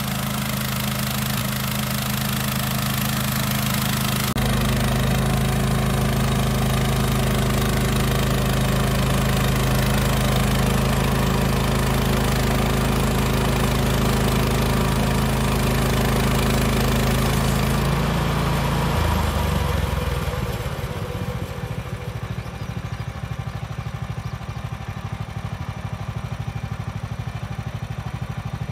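Gasoline engine of a Woodland Mills HM126 portable bandsaw mill running hard while the band blade cuts through a cedar log. About 19 seconds in, the engine drops to a lower, quieter run as the cut finishes.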